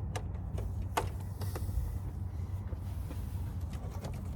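Steady low wind rumble on the microphone, with a few light clicks and knocks from a folding camp table being handled, the sharpest about a second in.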